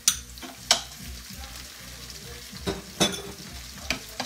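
Shrimp and vegetables frying in oil in a pan, a steady sizzle broken by several sharp taps and scrapes of a spatula stirring them.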